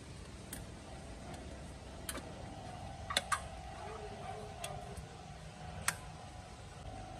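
Suzuki Mehran's plastic air cleaner housing being handled and seated back on the engine: scattered sharp plastic clicks and knocks, the loudest a quick pair about three seconds in and another near six seconds.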